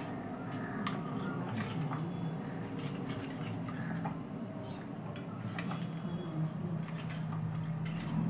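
Metal spoon stirring in a small steel bowl, scraping and clinking against its sides in irregular light clinks, a few a second, over a steady low hum.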